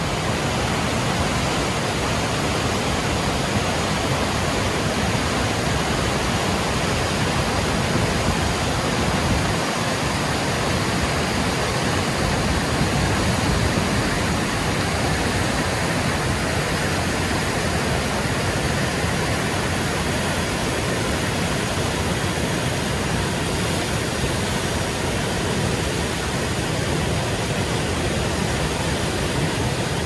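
Whitewater rapids and falls rushing over rock ledges: a loud, steady, unbroken rush of water.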